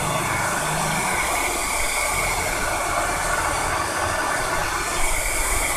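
Handheld pet blower dryer running steadily, a constant rush of air blown onto a small dog's damp coat.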